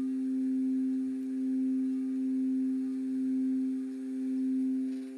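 Singing bowl, tuned for the root chakra, ringing with one steady low tone and fainter overtones above it. Its loudness wavers in a slow pulse about once a second.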